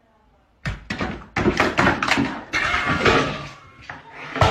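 A quick irregular run of knocks and thuds, starting about half a second in, with a sharp knock near the end.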